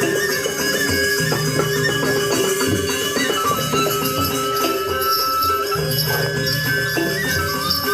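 Balinese gamelan accompanying a dance: sustained metallophone and gong tones with fast, continuous jangling of small cymbals, over a low drone that drops out and comes back about every two seconds.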